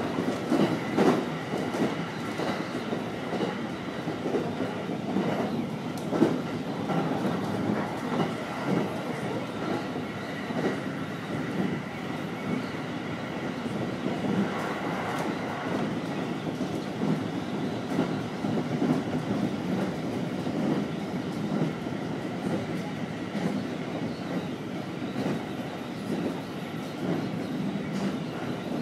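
Utsunomiya Line train running along the track: a steady rumble with wheels clattering over the rail joints, and a few faint steady tones above it.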